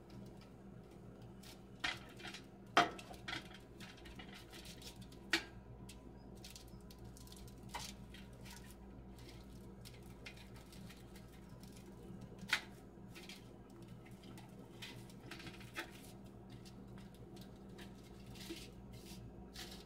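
A table knife cutting chicken nuggets on a foil-lined metal baking tray: scattered small clicks and scrapes of the blade against the foil and pan, with a few sharper taps.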